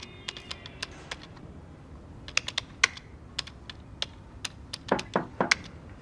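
Typing on a computer keyboard: irregular keystrokes that pause briefly before the middle and then resume. About five seconds in come three heavier knocks, a knock at the office door.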